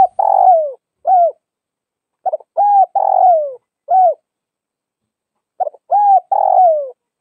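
Spotted dove cooing its song: phrases of a few coos repeated about every three seconds, each with a short opening note, a longer note that drops in pitch, and a short closing note.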